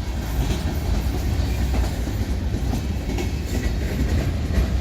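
Cars of a manifest freight train rolling past with a steady rumble and a clickety-clack of wheels over the rail joints.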